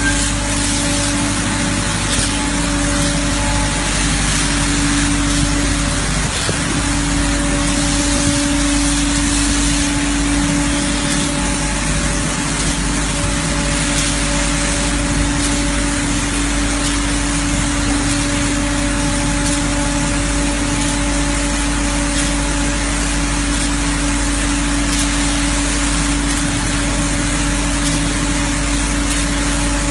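Line-X polyurea spray rig running steadily: a constant machine hum under the hiss of the spray gun applying coating.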